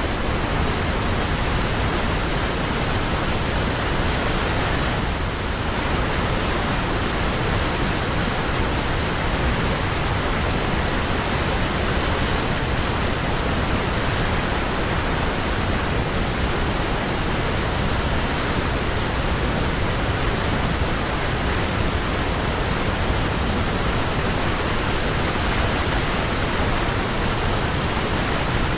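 Waterfall: a steady, dense rush of falling water, unbroken throughout.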